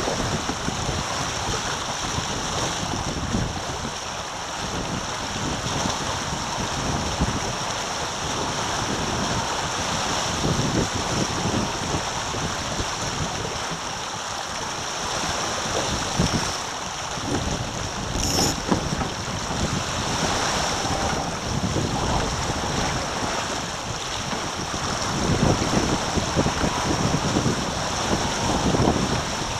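Water rushing and hissing past the hull of a Taipan sailing catamaran under way at speed, with wind buffeting the microphone in gusts.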